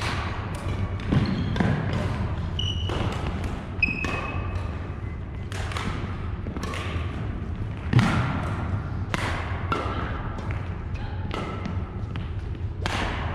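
Badminton rally: rackets striking the shuttlecock at irregular intervals, with shoes squeaking and footfalls on the wooden court floor. The sharpest hits come about a second in and about eight seconds in.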